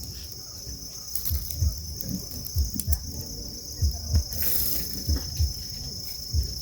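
A steady, high-pitched chorus of insects, with irregular low thumps a few times a second that are the loudest sounds.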